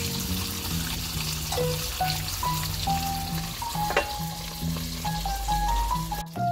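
Mackerel fillets sizzling steadily in hot oil in a frying pan, under background music with a simple stepped melody. There is one short click about four seconds in, and the sizzle cuts off abruptly near the end.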